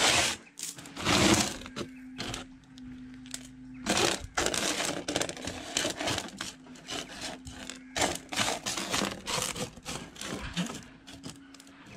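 Small gravel stones being pushed and raked by hand across a metal sorting table: a stream of irregular clicks and rattles as the stones knock together and slide on the metal.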